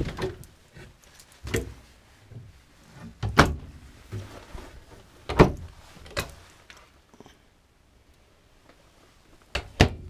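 Wooden cabinet doors being opened and pushed shut by hand: about half a dozen sharp knocks and latch clicks, the loudest about halfway through and a quick pair near the end.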